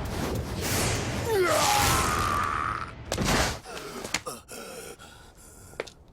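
Dubbed anime battle sound effects: a loud rushing noise with a cry that falls in pitch, then a heavy hit about three seconds in. After the hit it dies down to a quiet bed with a few sharp clicks.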